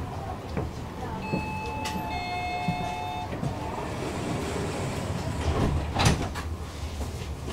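Tram standing at a stop with a steady low hum. A descending two-note chime sounds about a second in and lasts about two seconds. A sharp thump follows about six seconds in, as the sliding doors shut before departure.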